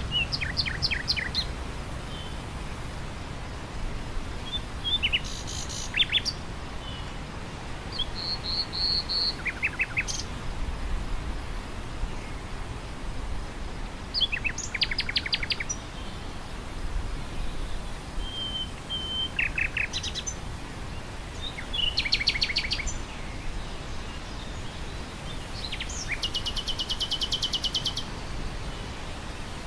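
Nightingale singing in separate short phrases of rapidly repeated notes and clear whistles, with pauses between them; a fast, buzzy trill near the end is the longest phrase. Steady wind through grass runs underneath.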